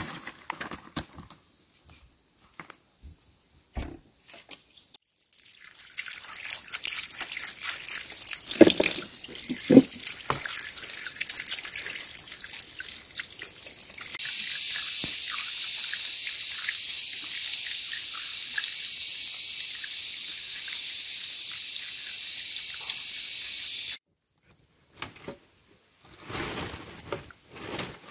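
Water pouring from a split-bamboo pipe and splashing over hands and meat being washed. It begins as irregular splashing with a couple of knocks, then turns into a steady pour about halfway through, which stops abruptly near the end.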